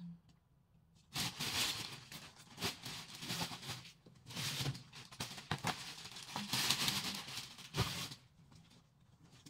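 Plastic shopping bags and packaging rustling and crinkling as items are handled, in bursts with a few small knocks. Quiet for about the first second, and quieter again after about eight seconds.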